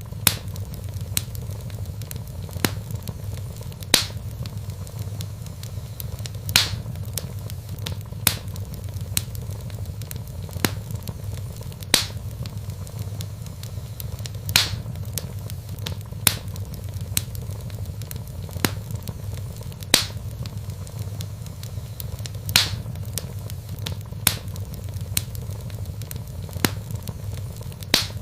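Wood fire crackling in a fireplace: sharp pops and snaps of burning logs at irregular intervals, a few louder ones every few seconds, over a low steady rumble.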